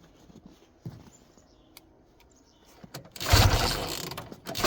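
The two-stroke engine of a 1971 Ski-Doo Olympic snowmobile firing up about three seconds in, after a few faint clicks, and then running loudly with an uneven level.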